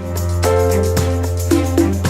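Background music: a held low bass note under sustained chords, with a light ticking beat.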